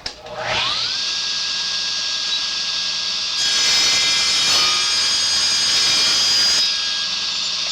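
Electric saw starting with a rising whine and running steadily. About three seconds in, it cuts through a hardwood (black walnut) runner for roughly three seconds, louder and rougher under load, then runs free again.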